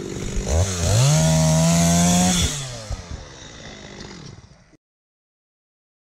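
Stihl MS 250 two-stroke chainsaw idling, then revved up about half a second in and held high for about a second and a half before dropping back to idle. The sound cuts off suddenly near the end.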